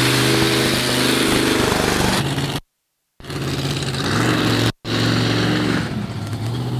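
Monster truck engine running as the truck drives, a steady low drone that rises a little in pitch about four seconds in. The sound cuts out to silence twice: for about half a second near the middle, and for a moment about two seconds later.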